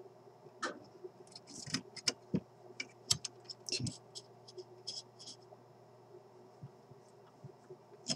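Irregular small clicks and scratches of a soldering iron tip scraping and tapping against a capacitor lead and solder lug on a tube radio chassis, the joint not getting hot enough to melt. The clicks thin out after about five seconds, over a faint steady hum.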